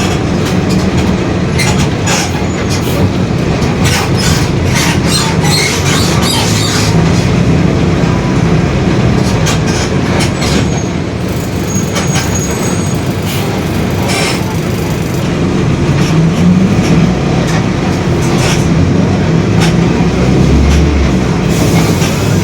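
Mercedes-Benz OF-1721 city bus under way, heard from inside: its front-mounted diesel engine and drivetrain run steadily under the growl of the differential, which is making a noise. The body and fittings keep up frequent rattles and clicks, busiest in the first several seconds.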